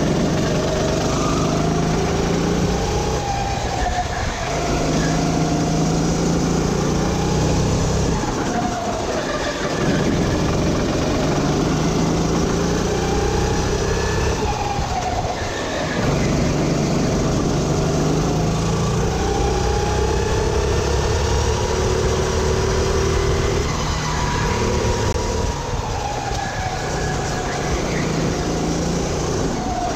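Sodi RT8 rental kart's single-cylinder four-stroke engine heard from on board at racing speed, its pitch climbing along the straights and dropping sharply about four times as the kart slows for corners.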